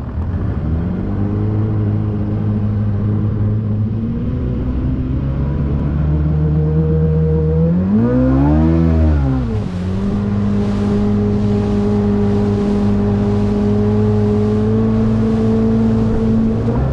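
Motorboat engine running under way. About eight seconds in, its pitch rises and falls back as the engine speed changes, then it settles at a slightly higher steady note.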